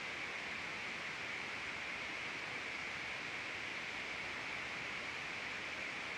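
Steady hiss from an open microphone, even throughout, with no other sound.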